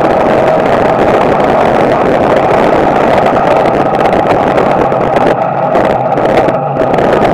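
Small-block Chevrolet V8 of a street stock race car running hard at racing speed, heard loud from inside the cockpit, with the sound briefly dropping off twice near the end.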